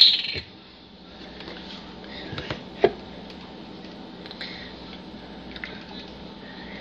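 Close handling noise: a short loud rustle at the start, then quiet scattered knocks and rustles as a carton and the recording device are moved about, with one sharp click about three seconds in.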